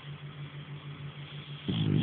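French Bulldog snoring: a low, fluttering rumble, then a much louder rasping snore starting near the end.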